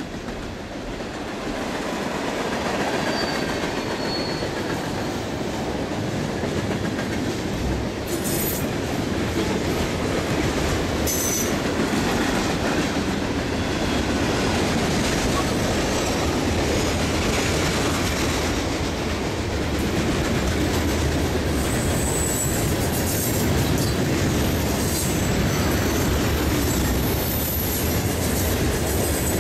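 Freight train rolling past at close range: a steady rumble of wheels on rail with rhythmic clickety-clack, and brief high-pitched wheel squeals now and then. It swells over the first couple of seconds and then holds steady.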